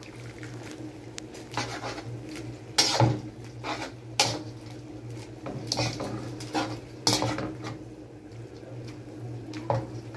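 Metal spatula scraping and clinking against a wok while tossing a mass of mixed rice noodles and canton noodles: irregular strokes, the loudest about three, four and seven seconds in, over a steady low hum.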